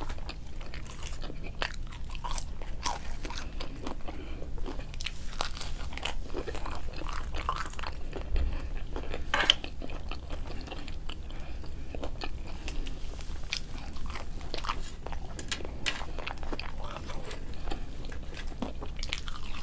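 Close-miked chewing and crunching of fast food: a steady run of small, crisp crunches and mouth clicks.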